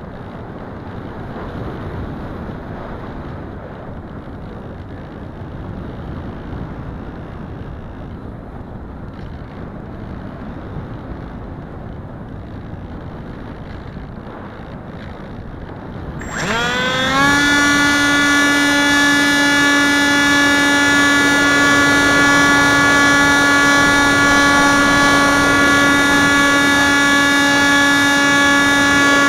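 Wind rushing over the onboard keychain camera of a Wing Wing Z-84 flying wing, with no motor tone. A bit over halfway through, the electric motor and propeller spin up with a quick rising whine, then run at a loud, steady, high-pitched drone.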